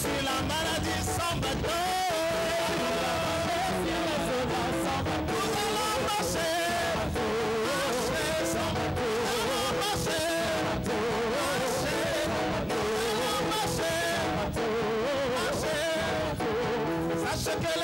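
Church praise music: a man singing into a microphone over amplified band accompaniment with guitar and a steady beat.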